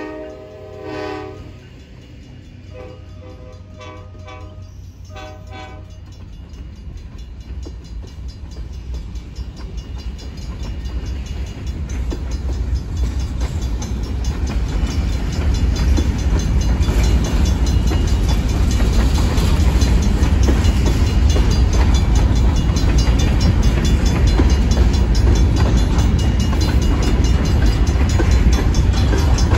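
Freight train locomotive's horn ending about a second in, followed by a brief fainter pulsing tone, then covered hopper cars rolling past: steel wheels clattering over the rail joints over a low rumble that grows steadily louder.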